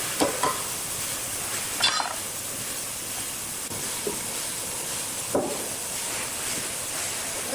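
Steady hissing noise of sawmill work, broken by four short knocks: about a quarter second in, near two seconds, near four seconds and about five and a half seconds in.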